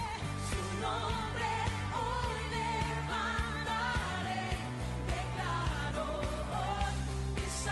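A pop-style song with a sung vocal melody over bass and drums.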